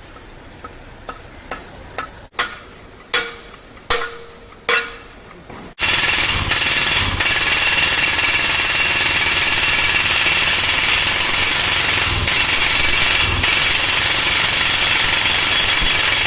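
Hydraulic rock breaker on a mini excavator: about eight separate metallic blows over the first five seconds or so, then from about six seconds in it hammers continuously and loudly.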